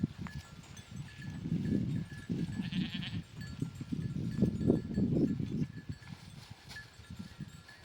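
A herd of sheep and goats bleating in irregular calls, with small animal bells clinking.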